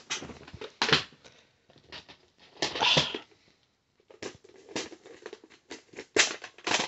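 Plastic VHS clamshell cases being handled and turned over: scattered sharp clicks and clacks of hard plastic, with a short scraping rustle about three seconds in.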